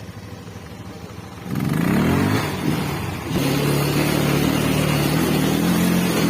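Motorcycle engine revving up sharply about one and a half seconds in, then pulling steadily under load, with a brief dip in the middle.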